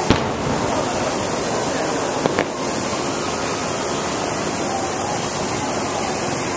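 Aerial firework shells bursting: two sharp bangs, one at the start and one about two and a half seconds in, over a steady rushing noise.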